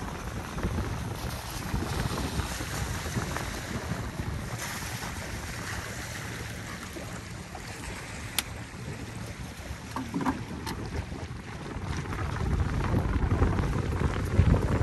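Wind buffeting the microphone over water lapping around an open wooden boat on a lake, the gusts growing louder near the end; a single sharp click about eight seconds in.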